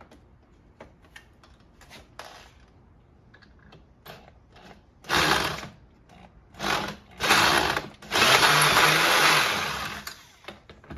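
A power tool driving a socket on the rounded-off starter collar nut of a Husqvarna 128LD trimmer, run in three short bursts and then for about two seconds steady, failing to grip the nut. Light tool-handling clicks come before it.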